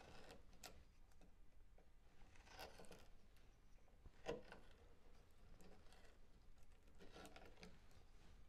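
Faint cutting strokes of a BeaverCraft K8a/14 short bent gouge slicing chips from silky oak, with a sharper click about four seconds in.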